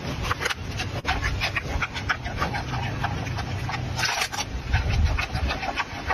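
Giant panda chewing a bamboo shoot: a rapid, irregular run of crisp cracks and crunches, with a denser burst of crunching about four seconds in.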